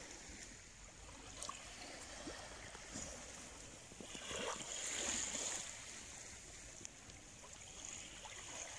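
Small waves washing on a sandy shore, a soft wash that swells about four seconds in and then fades back.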